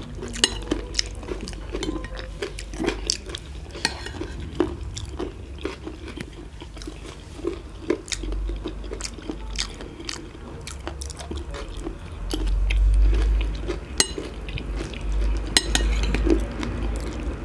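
Metal spoons clinking and scraping on plates, with chewing and crunching of crunchy chatpate made with puffed rice and fried beaten rice. A low rumble swells up a few times, loudest a little past the middle.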